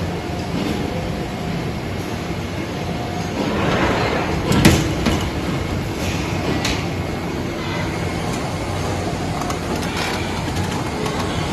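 Industrial moulding machine running with a steady low hum; about four seconds in a rising rush ends in one sharp, loud metallic clack, and a lighter click follows a couple of seconds later.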